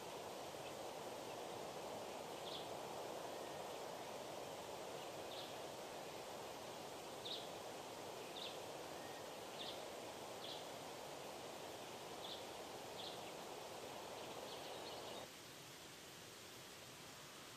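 Faint outdoor ambience: a steady rustling hiss with about ten short, high chirps scattered through it. The hiss drops off abruptly about fifteen seconds in.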